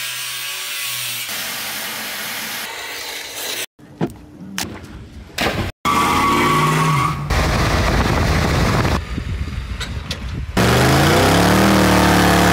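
A quick run of cut-together clips: an angle grinder cutting into a steel wheel, then a few clicks, then a pickup truck's engine running, and near the end a car engine revving up, rising in pitch as it accelerates.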